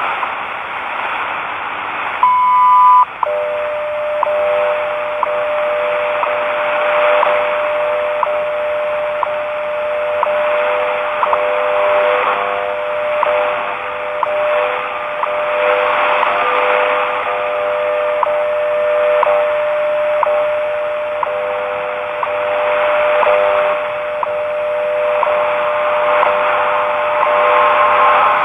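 Shortwave radio receiving the WWV time signal on 10 MHz through hissing static. About two seconds in, a short, loud beep near 1 kHz marks the minute. Then come steady audio tones around 600 and 500 Hz, with faint once-a-second ticks.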